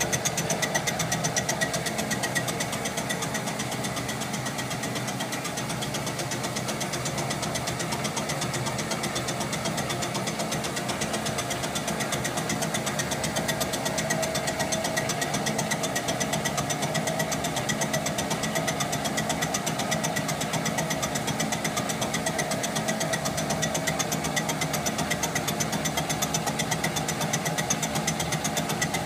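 Boxford STS lathe running steadily while turning a Stuart steam engine flywheel, with a fast, even ticking and a steady whine.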